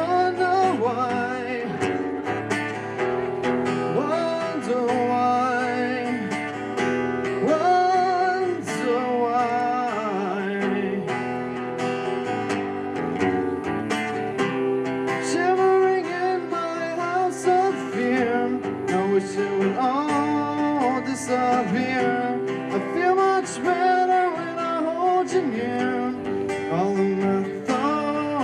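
A solo singer performing an original song, accompanying himself on an acoustic guitar; the voice and guitar carry on without a break.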